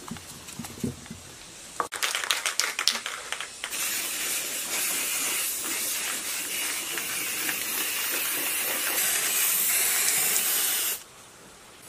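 A quick rattling for a couple of seconds, then an aerosol spray-paint can spraying in a steady hiss for about seven seconds, cutting off sharply about a second before the end.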